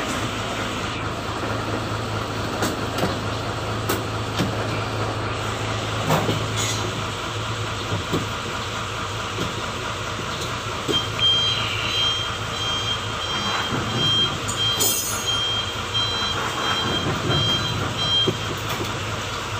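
Mitsubishi Fuso truck's diesel engine idling steadily, heard from inside the cab, with a few light knocks and no clicking left from the freshly adjusted clutch. About halfway through, a reversing beeper starts a run of high, evenly spaced beeps lasting some seven seconds.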